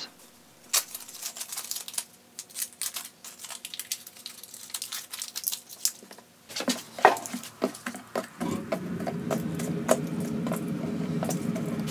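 Hands wrapping a thin, freshly boiled wood-veneer strip around a knife handle and taping it with painter's tape: scattered small clicks, crackles and rustles. About two-thirds of the way through, a steady low hum begins, with a few faint clicks over it.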